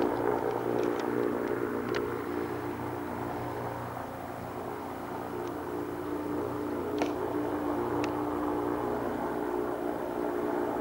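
Goodyear blimp's propeller engines running steadily overhead, an even low-pitched drone that eases a little midway and then swells again. A few faint clicks sound over it.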